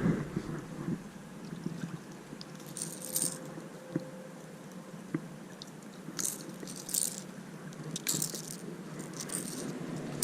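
Cordell Spot lipless crankbait rattling, with its treble hooks clinking, in about four short shakes, along with a few light clicks.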